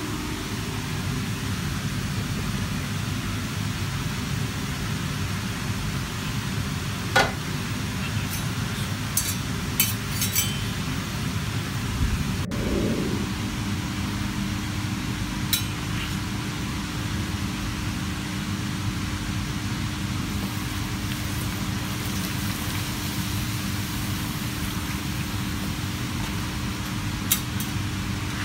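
Steady rushing roar of commercial gas burners and kitchen ventilation with a constant low hum, broken by a few sharp clinks of metal utensils and a dull thump about twelve seconds in.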